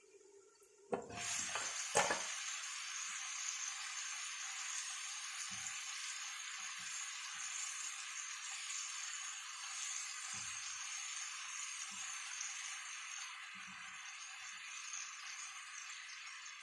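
Chicken shish tawook pieces sizzling steadily in a lightly oiled grill pan over medium heat, with two light knocks about a second and two seconds in.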